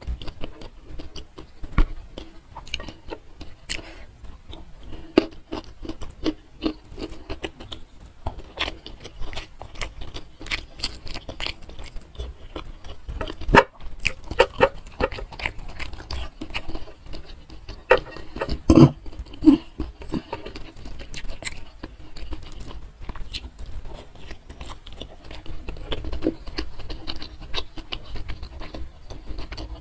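Mouth sounds of eating by hand: wet chewing and lip smacking of rice, chilli chicken and salted fish, with small squelches and clicks of fingers working the food. The sounds come irregularly, with a couple of louder bites about halfway through.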